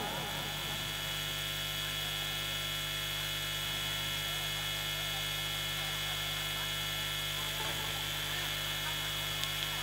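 Steady electrical mains hum with a high hiss. Two faint ticks come near the end.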